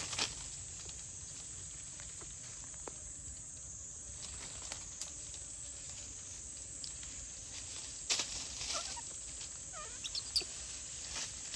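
Outdoor animal ambience: a steady high-pitched insect drone, with scattered clicks and rustling and a few short chirps near the end.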